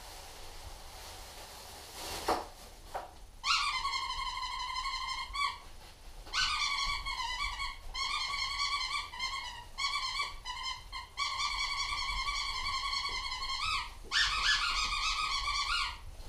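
Goldendoodle puppy whining in a series of six long, high-pitched whines, each one to three seconds long, several rising at the end, with short pauses between. Two soft thumps come just before the whining starts.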